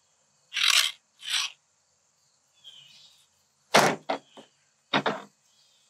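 Two short rasping strokes of a file across a chainsaw chain cutter, then a few sharp knocks and clicks of hand tools set down on a plastic pickup bed liner.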